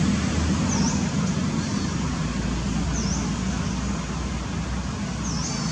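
Steady rumble of road traffic, with a bird's short high chirp heard three times, about two seconds apart.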